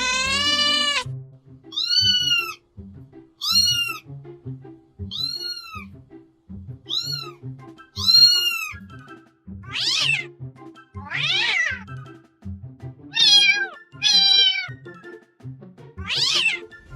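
Domestic cat meowing over and over, over background music: one long wavering meow that ends about a second in, then about ten short meows a second or two apart, the later ones sliding down in pitch.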